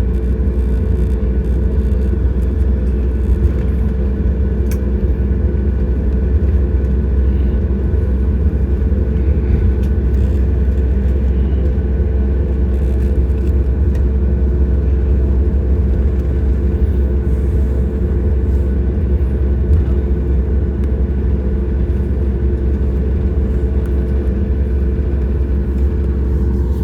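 Cabin noise inside a Boeing 737 MAX 8 waiting at the runway: a steady low rumble with an even hum from its CFM LEAP-1B engines at idle.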